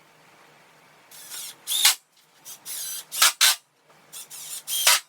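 Power drill run in a series of short trigger bursts, its motor whine rising and falling, driving screws into the wooden slats of a garden seat.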